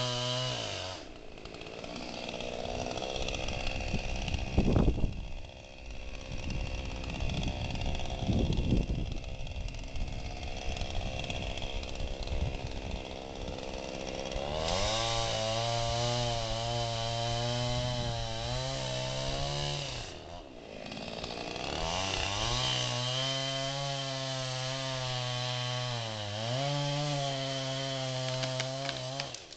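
Two-stroke chainsaw cutting dead cedar trunks. It runs low and rough through the first half, with two loud bursts about five and eight and a half seconds in, then holds a steady high-revving note for most of the second half, dipping briefly twice before stopping at the end.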